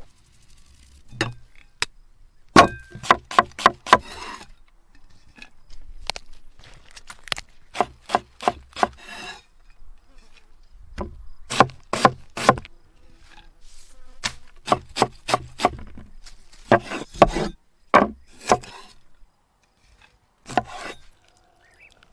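Knife chopping on a wooden cutting board: quick runs of sharp strikes, about three or four a second, in several bursts with short pauses between.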